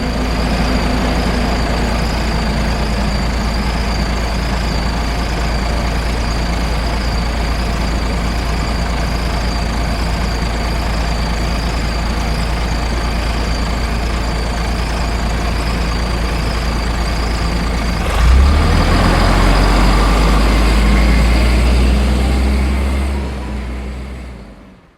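City ambience dominated by a heavy vehicle's engine running, a deep steady rumble with a thin steady whine above it. About 18 seconds in, the rumble grows louder and deeper, and the sound fades out near the end.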